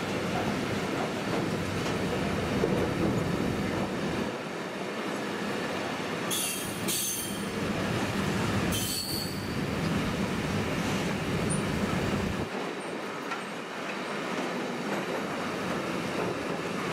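Intermodal freight train's container wagons rolling past on the rails with a steady rumble of wheels. A few brief, sharp high squeals come from the wheels about six and nine seconds in.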